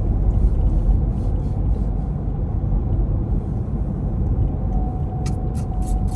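Steady low rumble of a car heard from inside the cabin while driving. Near the end a quick, even run of sharp ticks, about three a second, starts up.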